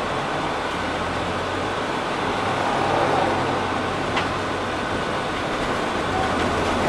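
A city bus driving along a highway, heard from inside its cabin: a steady engine drone under road and tyre noise. A short sharp click comes about four seconds in.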